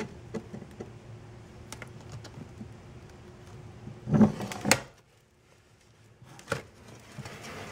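Glass-breaker point of a Sanrenmu 7056 folding knife drawn across a pane of window glass to score a line for breaking it: one short, loud scratching stroke, a bit under a second long, about four seconds in. Light taps and clicks of the glass being handled come around it, with a sharper click near the end.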